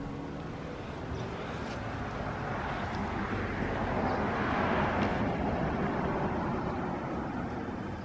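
A vehicle passing by, its rushing tyre and engine noise swelling to a peak about halfway through and then fading away.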